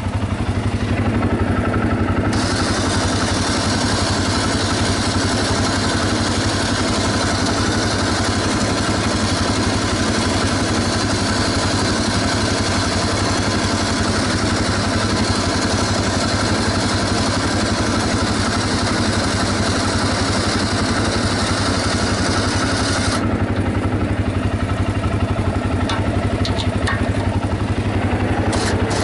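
ATV engine running steadily under way, a constant drone throughout. A high hiss comes in about two seconds in and drops away about five seconds before the end, and a few light clicks sound near the end.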